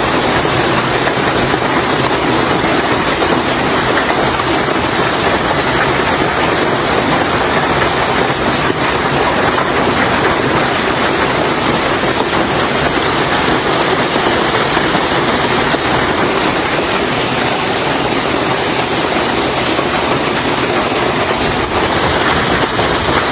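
Hailstorm in full force: hailstones pelting down in a dense, steady clatter that runs together into a continuous roar.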